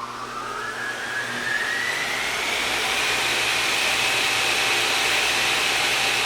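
A machine's motor spinning up, its whine rising in pitch over the first couple of seconds, then running steadily at high speed over a hiss.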